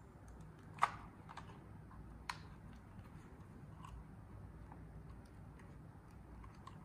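Light plastic clicks and taps as the folding arms of a DJI Mavic Mini drone are swung open by hand: two sharper clicks about a second and a half apart, then scattered faint ticks.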